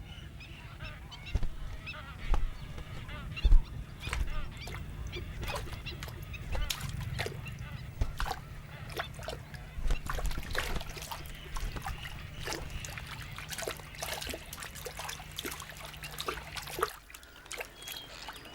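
A nesting colony of water birds such as painted storks, with many short honking calls and clicks coming thick and fast. A low steady hum runs underneath and stops near the end.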